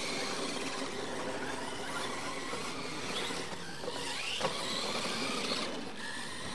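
Losi LMT radio-controlled monster trucks racing on dirt: their electric motors and drivetrains whine, rising and falling with the throttle. A sharp knock comes about four and a half seconds in as a truck lands off a ramp.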